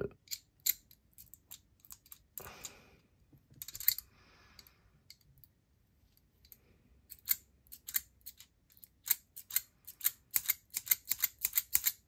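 Small metal clicks and clacks from a stainless-steel Desert Eagle fidget toy being worked by hand: a few clicks and two short sliding scrapes, a pause, then a quick run of clicks over the last five seconds. The toy's magnet-and-spring action is loose, which the owner takes for a broken mechanism.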